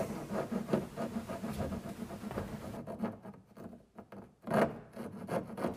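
Four-way hand file rasping across the coped end of a baseboard in short scraping strokes, finishing off the cope profile. The strokes pause about three seconds in, then come back louder near the end.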